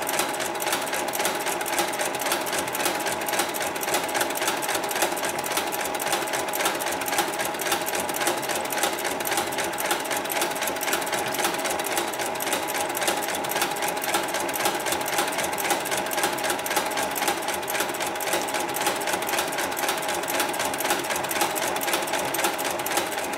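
Hightex industrial zigzag sewing machine running steadily at speed while sewing rope onto netting, a rapid, even clatter of needle strokes over a steady motor hum.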